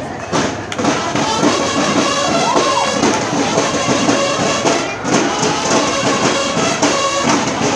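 Marching band playing in a parade: brass horns over steady drumming.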